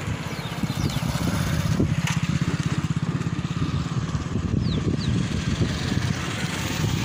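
An engine running steadily, with a rapid, even low beat; a few short high chirps sound over it.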